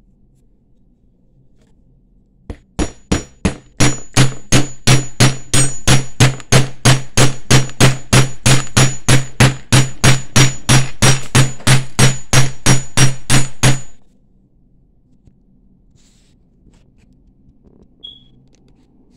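A hammer striking the end of a brass bangle wire on a metal bench block, about three ringing metallic blows a second for around eleven seconds. The first few blows are lighter taps. The blows stop suddenly.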